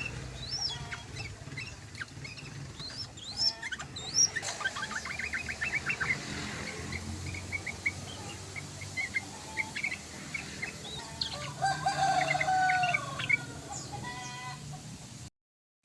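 Yellow-vented bulbul (trucukan) chattering and calling in quick, bubbly, sliding notes, with a fast run of repeated notes about halfway through. The sound cuts off suddenly near the end.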